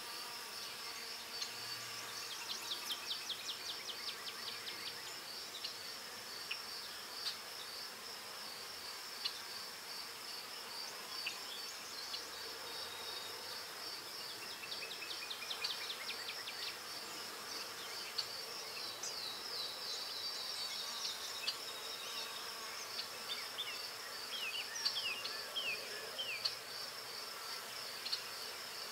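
Steady high-pitched insect trill, pulsing evenly throughout, with runs of short ticks over it at times.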